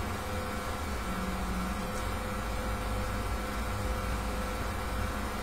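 Steady hum and hiss of a running fan, with a few faint steady whining tones.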